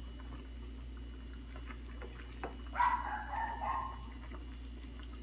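Silicone spoon stirring ramen soup in a steel pot on a gas stove, the liquid sloshing softly, with a light knock on the pot about two and a half seconds in. A short high wavering whine, about a second long, starts near three seconds in and is the loudest sound.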